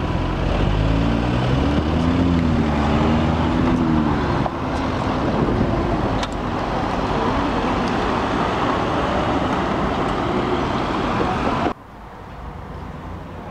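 City road traffic: a steady wash of car and engine noise, with an engine note wavering up and down for a few seconds early in the stretch. About two-thirds of the way through, the sound drops suddenly to a quieter street hum.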